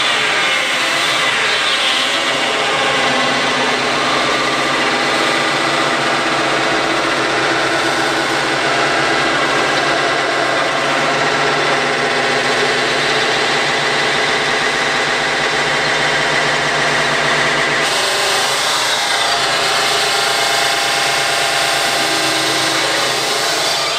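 Dense, noisy electronic music from a live modular synthesizer performance: a loud, steady wash of grinding, rasping noise over layered drones, shifting in texture about three-quarters of the way through.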